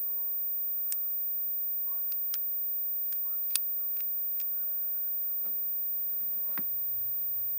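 Sharp, irregular plastic clicks, about eight in all, as orange plastic BB pellets are pressed into a toy pistol's spring-loaded magazine and the magazine is handled. The loudest click comes about three and a half seconds in.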